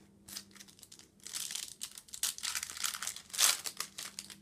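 Plastic wrapper of a 2020 Bowman Chrome Mojo trading-card pack crinkling and tearing as it is opened by hand, in a run of irregular rustles that is loudest about three and a half seconds in.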